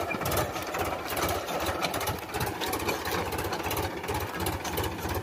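Powertrac Euro 50 tractor's three-cylinder diesel engine running steadily while pulling a tine cultivator through the soil, with a fast, even clatter.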